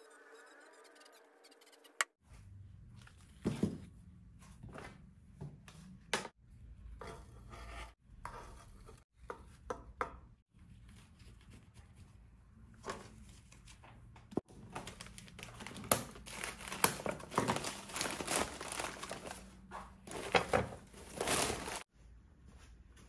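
Hands repotting a plant: potting mix rustling and crunching as it is pushed and pressed into a terracotta pot, with crinkling and light knocks. It comes in short stretches that cut off abruptly several times, busiest in the second half.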